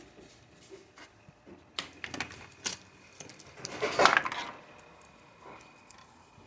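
Circuit boards and small hard objects being handled on a hard surface: scattered clicks and light clatter, busiest about two seconds in, then a louder rustling scrape about four seconds in.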